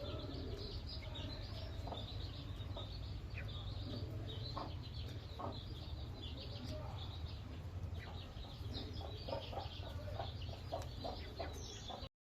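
A flock of chickens clucking and calling as they feed, many short overlapping calls with high chirps among them, over a steady low rumble. The sound cuts off abruptly near the end.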